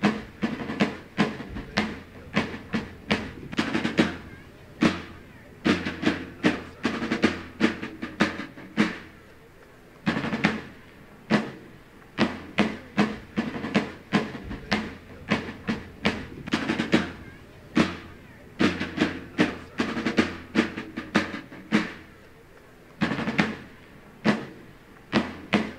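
Side drum beating a slow marching cadence: groups of sharp strokes with short rolls, pausing briefly about ten seconds in and again about twenty-two seconds in.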